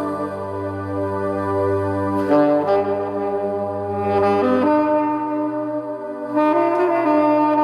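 Saxophone playing a slow melody in long held notes over a backing accompaniment.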